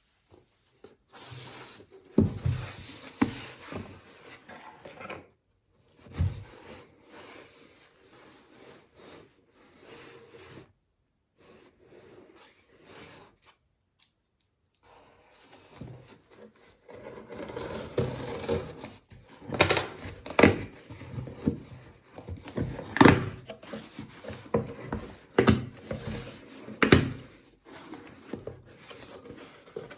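Hands unpacking and handling a clothing tag gun and its packaging: rustling and rubbing, with scattered sharp knocks and clicks that come more often in the second half.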